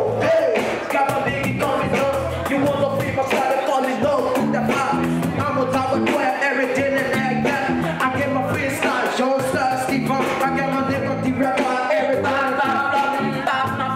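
Live band music with a male vocalist performing into a microphone over a steady beat and bass line.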